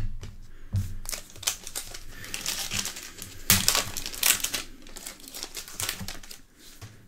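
Foil trading-card pack wrapper crinkling as it is torn open and handled by hand, an irregular run of crackles that is loudest a little past the middle.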